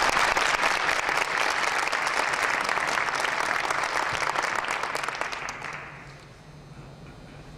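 Audience applauding, a steady patter of many hands clapping that dies away about six seconds in.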